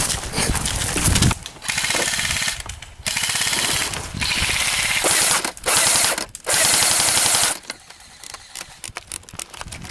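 Airsoft electric rifle firing on full auto: five sustained bursts of rapid-fire shots, each about half a second to a second and a half long, between about a second and a half and seven and a half seconds in. Before the first burst there is loud rustling noise.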